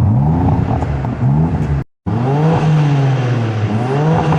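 BMW M3's twin-turbo straight-six engine revving: its pitch climbs several times over steady low engine tones. It cuts out briefly about two seconds in, then resumes.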